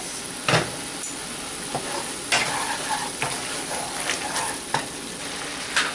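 Onion and ginger-garlic masala sizzling in hot oil in a wok as it is stirred, with about five short knocks and scrapes of the stirring utensil against the pan.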